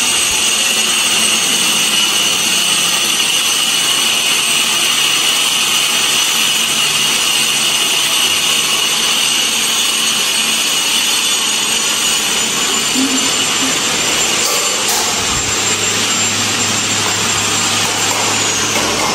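A power tool's electric motor running continuously at steady speed, a loud hiss with a high, steady whine.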